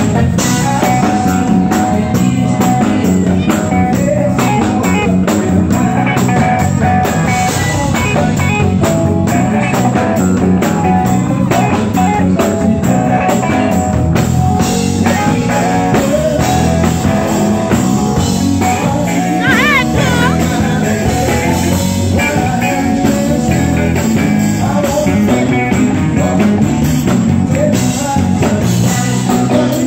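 Live band playing: drum kit, electric guitar and keyboard, with singing over it.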